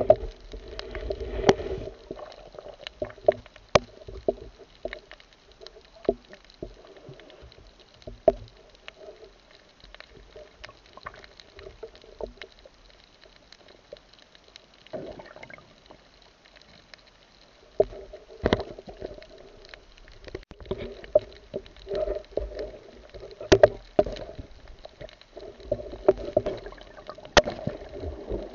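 Underwater sound of water moving around a camera held below the surface, with scattered sharp clicks and knocks, a few of them much louder than the rest.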